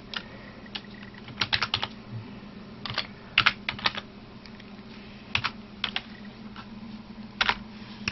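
Typing on a computer keyboard: keystrokes in short irregular bursts with pauses between, as a search query is typed, over a steady low hum.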